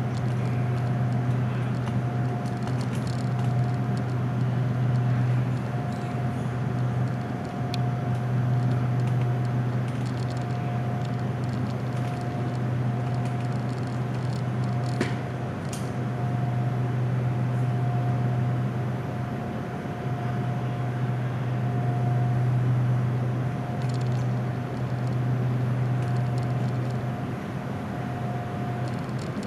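Inside a car of an SRT Red Line electric commuter train: a steady low hum with a thin higher tone over it, and a couple of brief clicks about halfway through. The train is running at restricted speed because its signalling cables were stolen.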